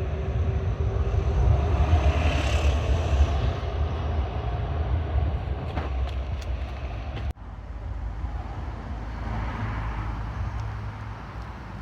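Road traffic going past: a vehicle's rumble swells and fades over a few seconds, the sound breaks off abruptly about seven seconds in, then a second vehicle passes more faintly.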